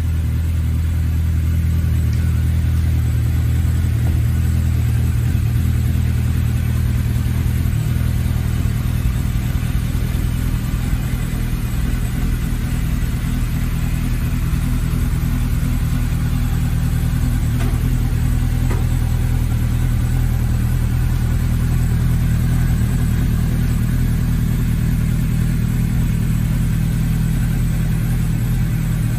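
2011 Suzuki GSR750's inline-four engine idling steadily through an aftermarket Remus exhaust, a deep, even rumble with no revving.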